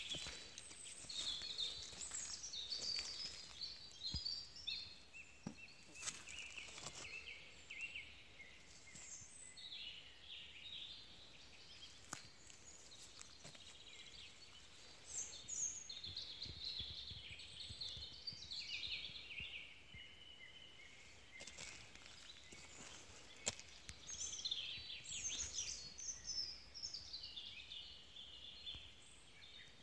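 Woodland songbirds singing, repeated phrases of quick high chirping notes that come and go every few seconds. Scattered footsteps and small knocks on stony ground are heard under the song.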